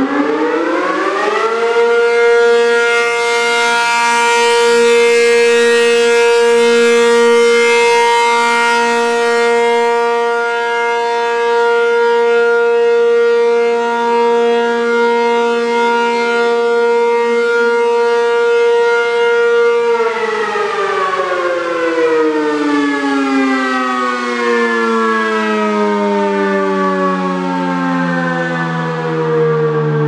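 American Signal T-135AC rotating outdoor warning siren sounding for a test. It finishes winding up to full pitch in the first two seconds and holds one steady wail. About twenty seconds in it begins winding down, its pitch falling steadily to the end.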